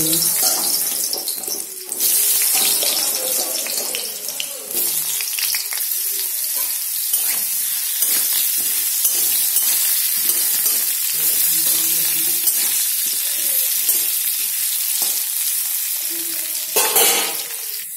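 Boiled potato cubes sizzling steadily as they fry in hot mustard oil in a metal kadai. A metal spatula scrapes and stirs them every so often.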